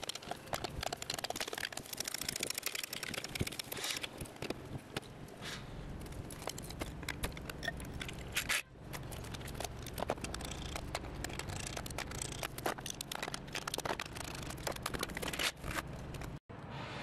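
Metal tool work at a car's front wheel: a lug wrench clicking and rattling on the wheel nuts and a hydraulic floor jack being pumped, a long run of small metallic clicks and knocks.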